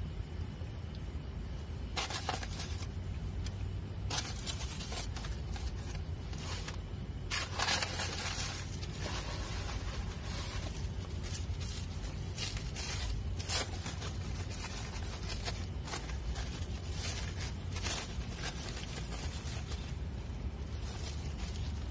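Scattered light scrapes, rustles and small knocks of hands handling sandwich fillings and cookware, over a steady low rumble.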